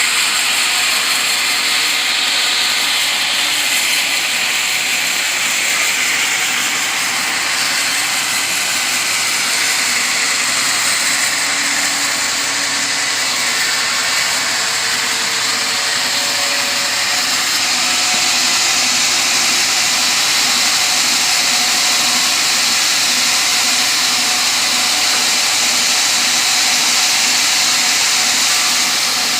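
Sawmill saw running and cutting teak timber: a loud, steady, high-pitched hiss that shifts slightly in tone about halfway through.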